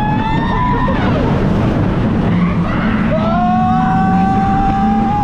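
Wind and ride noise rushing over the camera on the Cheetah Hunt launch coaster, a steady heavy rumble, with riders screaming: a short scream at the start and a longer held scream from about three seconds in.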